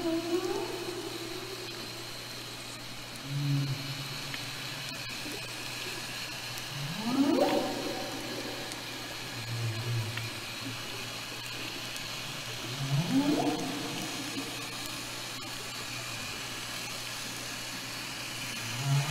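Northern resident killer whales of the A30 matriline calling, picked up underwater: repeated rising calls about every six seconds, with short lower tones between them, over a steady hiss and hum.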